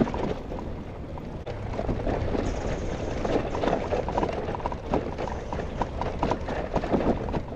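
Brompton folding bicycle rolling along a paved path: tyre noise with frequent small rattles and clicks from the bike, over a steady low rumble.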